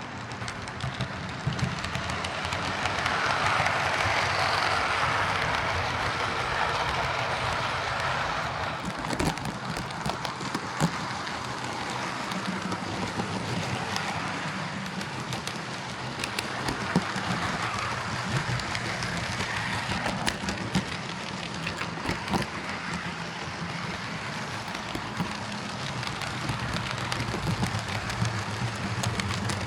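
Hornby OO gauge Class 43 HST model running on track: a steady whirr of motor and wheels over a low hum, with scattered small clicks as it runs over the rail joints. It grows louder a few seconds in, then runs evenly.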